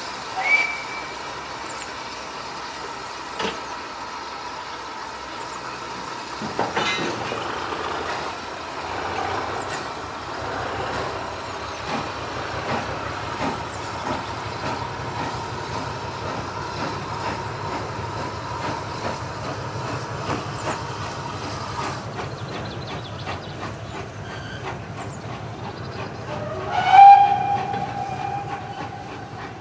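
Steam train running on the line, a rhythmic rumble building from about six seconds in. A brief high whistle note sounds just after the start, and a loud whistle blast near the end rises in pitch as it opens, then holds.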